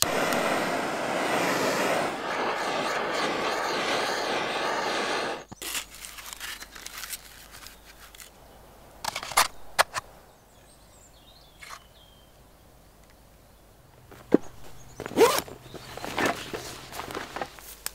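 A handheld gas blowtorch on a canister hissing steadily for about five seconds, then cutting off abruptly. Scattered clicks, clinks and handling knocks follow, with a cluster of louder knocks near the end.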